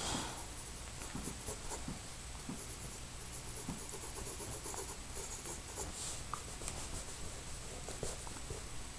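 Charcoal pencil scratching across sketchbook paper in short, repeated shading strokes, on and off.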